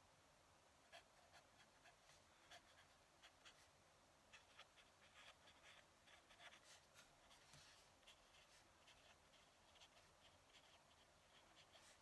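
Faint scratching of a fountain pen nib on paper, in quick irregular strokes as a line of handwriting is written.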